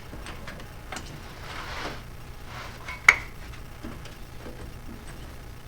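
Metal tools being handled, with scattered light clicks and a brief scrape, and one sharp metallic clink about three seconds in.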